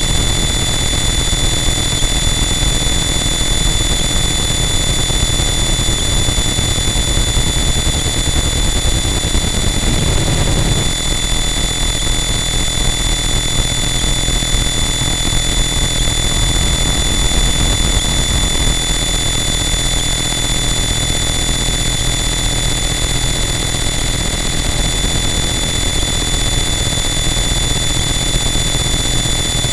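Harsh noise wall: a loud, unchanging wall of dense static with several steady high-pitched whines layered on top. The low end shifts briefly about ten seconds in.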